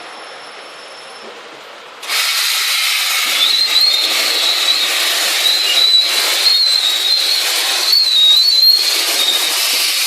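CNC V-grooving machine's cutter scraping a groove into a steel sheet: after a quieter hum, a cutting pass starts abruptly about two seconds in with a loud, steady scraping hiss and a wavering high squeal of tool on metal.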